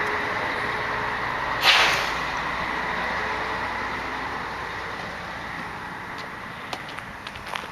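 A passing road vehicle, its steady noise slowly fading away, with a short sharp hiss about two seconds in.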